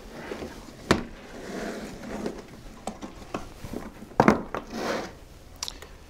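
Black plastic hard tool case being opened: its latches snap open with sharp clicks, one about a second in and a louder pair around four seconds, with rustling and knocking of the case between.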